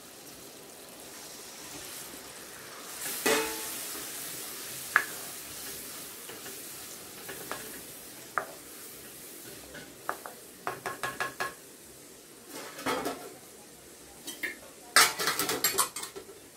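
Tamarind water poured into hot oil and fried onion-tomato masala in a metal kadai, sizzling as it goes in, then a wooden spoon stirring and scraping against the pan, with quick runs of knocks near the end.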